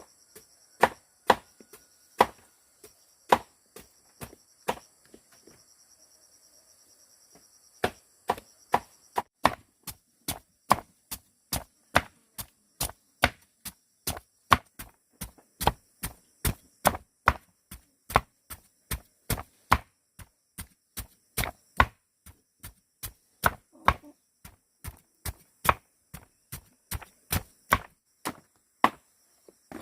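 Knife chopping brown tubers on a board in steady, evenly spaced strokes, about two a second, which stop for a few seconds early on and then resume. Insects, likely crickets, buzz steadily in the background.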